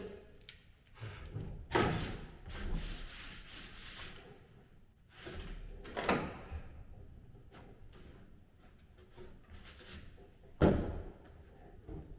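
Intermittent knocks and thumps of objects being handled: four louder ones a few seconds apart, with lighter rattles and rustling between.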